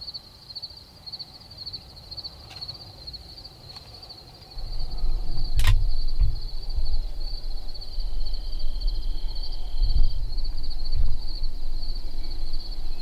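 Crickets chirping steadily, a high, rapid pulsing trill. About four and a half seconds in, a low rumbling noise comes in and becomes the loudest sound, with a single sharp click a little later.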